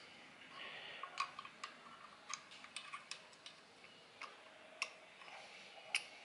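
Faint, irregular light clicks and taps, about ten in all, as hands fit a hook shaft and its belt into a longarm quilting machine's aluminium hook assembly.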